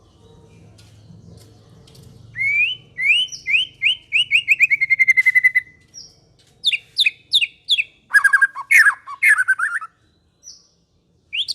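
Songbird singing: a fast run of rising whistled notes that slide down into a trill from about two seconds in, then sharp rising whistles and a burst of varied warbling and chattering around seven to ten seconds, with a few separate rising notes near the end.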